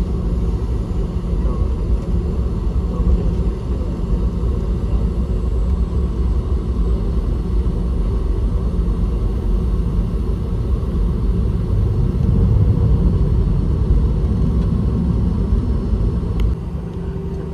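Steady low rumble inside the cabin of a Boeing 717-200 airliner parked after landing, with a continuous hum beneath it. It swells a little about twelve seconds in.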